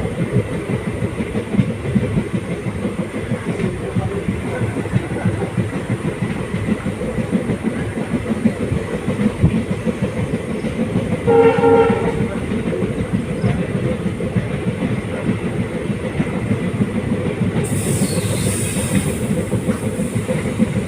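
Train running along the track: a steady rumble with the rapid clickety-clack of the wheels. A short horn blast sounds about halfway through, and a brief hiss rises near the end.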